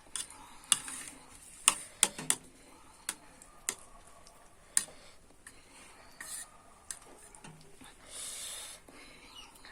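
Cutlery clinking and scraping against a dish of noodles during eating, in a scatter of sharp separate clicks, most of them in the first five seconds.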